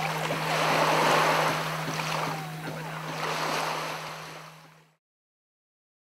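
Sea waves washing in shallow water, the sound swelling and easing, with a low steady hum underneath; it fades out from about four seconds in and is silent by five seconds.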